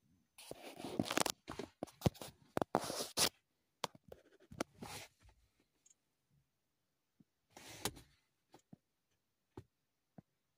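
Handling noise: rustling and rubbing through the first few seconds, with shorter rustles and scattered light taps and knocks after, as a hand works an Autel diagnostic tablet and taps its touchscreen. No engine is running.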